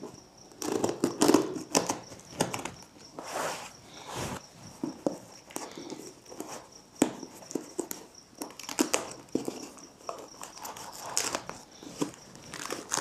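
A knife slitting and scraping through plastic stretch wrap and tape on a cardboard parcel, with irregular crinkling, scratching and tearing of the plastic film. It comes in short uneven strokes, loudest about a second in.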